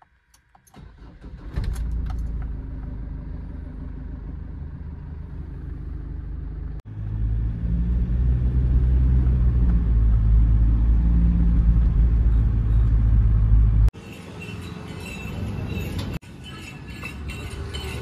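Ford Endeavour's diesel engine heard from inside the cabin. It starts about a second and a half in and runs at a steady low rumble. From about seven seconds it is a louder, steady low drone while driving. In the last few seconds it gives way to outdoor background noise.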